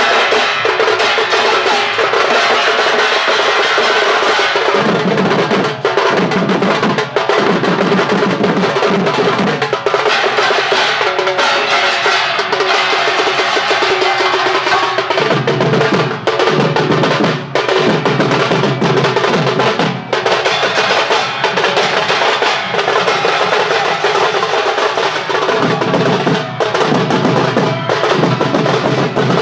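Procession percussion band playing loudly and without a break: several large drums beaten with sticks together with a hand-held metal gong plate, in a dense, fast rhythm of overlapping strikes.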